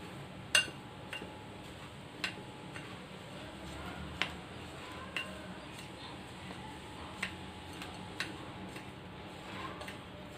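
Light, irregular clinks of a spoon against a bowl, about one every second or two, while a dry besan laddu mixture is being mixed.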